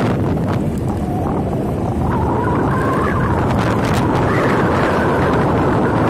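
Wind buffeting the microphone of a moving motorcycle, over the motorcycle's engine, whose faint whine rises and falls in pitch.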